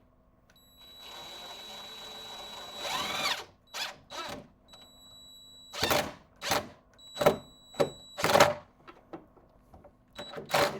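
Cordless drill driving a wood screw into an IKEA Lack table without a pilot hole. It runs steadily for a couple of seconds and rises in pitch, then works in a string of short loud bursts as the screw is driven home.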